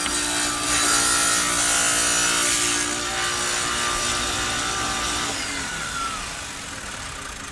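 Electric wet tile saw running with its blade spinning, steady and loud. About five or six seconds in it is switched off and winds down with a falling whine.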